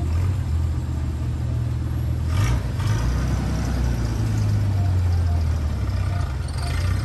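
Custom Dodge Power Wagon pickup's engine running with a low rumble as the truck moves slowly along, with a short louder rise about two and a half seconds in.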